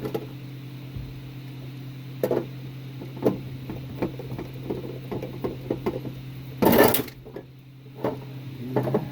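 Scattered clicks and light knocks of screws and parts being handled while a range hood is taken apart, over a steady low hum. There is a louder, short clatter about seven seconds in.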